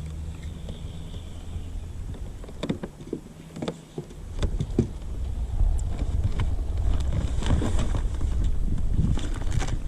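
A low steady hum for about the first four seconds, with a few knocks, then wind rumbling on the microphone with scattered clicks and knocks.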